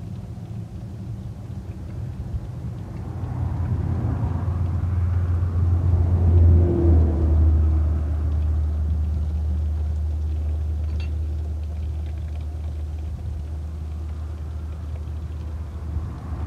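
Vinegar draining from an engine block and splashing into a catch pan, swelling a few seconds in and then easing. A steady low rumble runs underneath.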